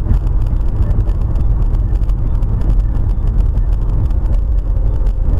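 Steady low rumble of a car's engine and tyre noise, heard from inside the cabin through a dashcam microphone while driving at highway speed.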